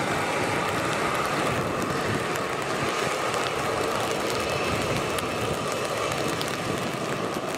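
Boeing 737-700's CFM56 jet engines running at taxi power, a steady whine over a broad rumble.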